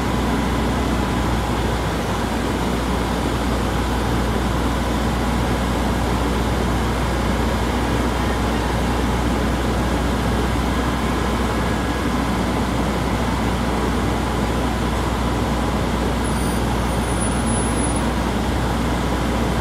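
Diesel engine of a truck-mounted crane running steadily as it powers the lift, a continuous low rumble with a faint steady high tone over it.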